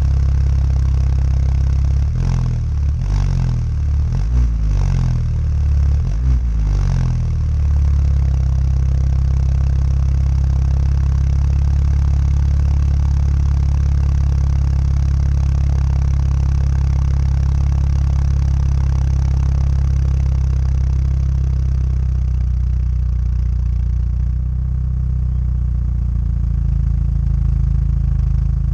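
Exhaust of a 2012 BMW 320i F30's turbocharged four-cylinder, stage 1 tuned and fitted with a smaller muffler, heard at the tailpipe: several quick blips of the throttle about two to seven seconds in, then a steady idle.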